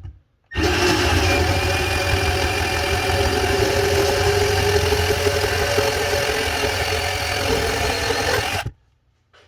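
Milwaukee 2429-20 12-volt cordless portable bandsaw starting about half a second in and running steadily through a cut for about eight seconds, then stopping abruptly as the cut finishes.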